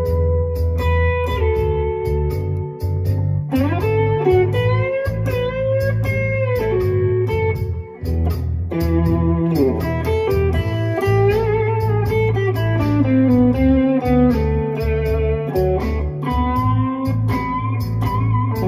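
Monoprice Indio Retro Classic Tele-style electric guitar playing a blues lead, single notes with frequent string bends. It plays over a steady backing beat with a bass line.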